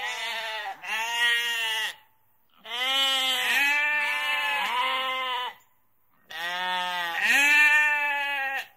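Sheep bleating: a run of wavering calls in three bursts with short pauses between them. The middle burst is one long bleat lasting about three seconds.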